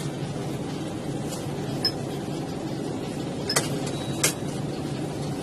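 Steady low hum with a few short, sharp clicks and clinks, the two clearest a little after three and a half and about four seconds in, as a cashier handles banknotes at a shop counter.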